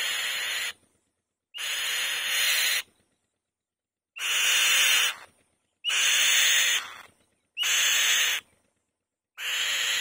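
Female white-tailed kite on the nest giving a loud series of harsh, rasping screams, about six in all, each about a second long with short gaps between.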